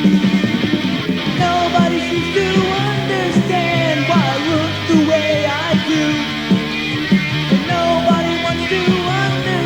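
Pop punk band playing, recorded on a demo tape: distorted electric guitar chords and bass with a melodic line sliding up and down in pitch over them.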